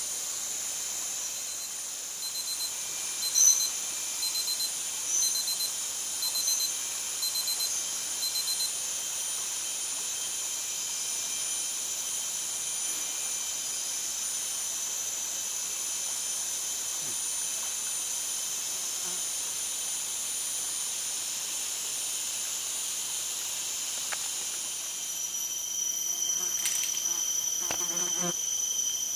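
Tropical forest insect chorus: a steady high-pitched drone, with a short chirping call repeated about six times, roughly once every second and a half, in the first nine seconds. Near the end the drone shifts to a different pitch and a brief rapid rattle sounds.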